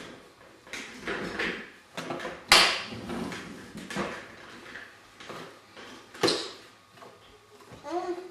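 Irregular knocks and taps on a plastic high-chair tray as babies slap at it and bang a plastic toy on it, the loudest knock about two and a half seconds in and another strong one about six seconds in.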